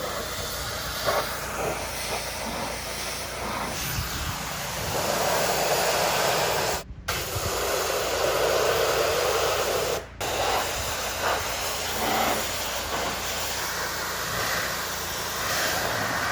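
Pressure washer spraying water onto house siding: a steady loud hiss of spray over a low machine hum, with two brief breaks about seven and ten seconds in.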